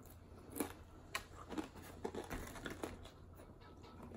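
Close-up chewing of a crisp tostada topped with shrimp: faint, irregular crunches and crackles about every half second.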